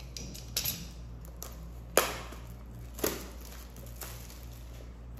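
Desk handling noise from a box cutter and a small paperback: a few sharp clicks and knocks, the loudest about two seconds in and another a second later, over a low steady hum.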